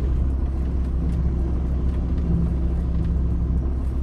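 VW T4 2.5 TDI five-cylinder diesel engine running, with the power steering pump making a horrible grindy noise: it is low on fluid from a leak. A steady humming tone joins the low rumble about half a second in and stops near the end.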